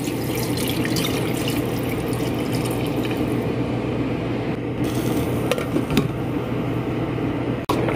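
Water poured from a container into a pot of chicken and rice, over a steady low hum. A few sharp clicks follow in the second half as a glass lid is set on the pot.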